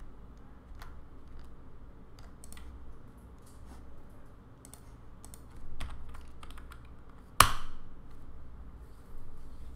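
Computer keyboard keystrokes, a few scattered taps, with one much louder sharp keystroke about seven and a half seconds in.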